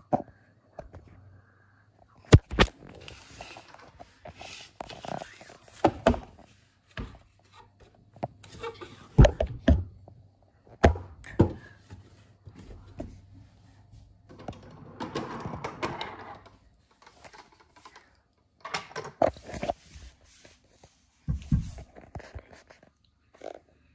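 An O scale model train car and its cardboard box being handled during unboxing: rustling of box and packing, broken by a series of sharp knocks and thunks at uneven intervals.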